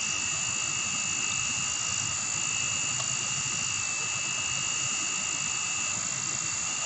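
Forest insects calling in a steady chorus: several unbroken high-pitched tones, over a low rumbling noise.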